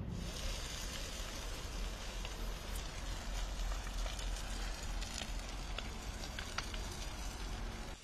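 Dry brush and grass burning: a steady hiss with sharp crackles and pops scattered through, most of them in the second half, over a low rumble.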